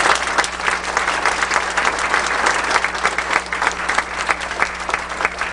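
An audience applauding: many hands clapping in a dense, even stream that thins slightly near the end, over a steady low hum.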